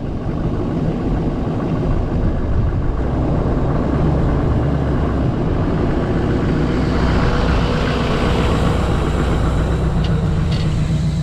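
Chevrolet pickup truck rolling slowly over at ground level, its engine running with a low, steady hum under tyre noise. The sound grows louder as the truck comes close, with a few sharp clicks about ten seconds in as it passes overhead.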